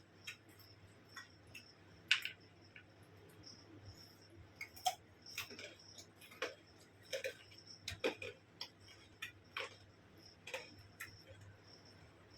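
Close-up eating sounds: irregular short wet clicks and smacks of chewing and mouth sounds, roughly one a second.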